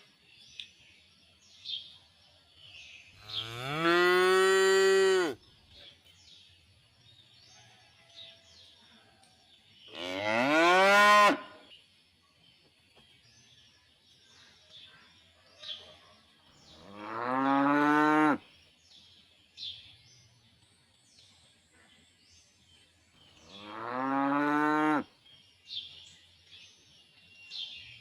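Cows mooing: four long moos, roughly six to seven seconds apart. Each rises in pitch at the start and then holds steady for one to two seconds.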